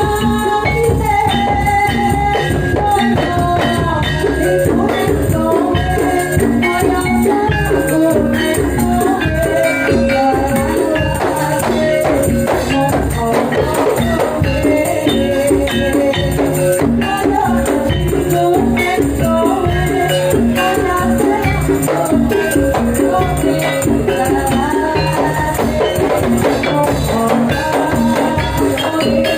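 Loud live band music for a gajah-gajahan troupe, with a steady driving beat, jingling tambourine-like percussion and a melody line.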